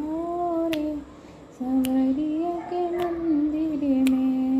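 A woman singing a Hindi devotional bhajan, holding long wordless notes that glide up and down, with a short break about a second in. A sharp click-like beat falls about once a second.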